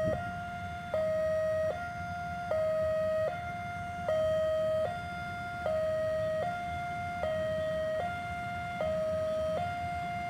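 Railway level crossing warning alarm sounding, alternating between two close pitches, each held just under a second, over a low background rumble.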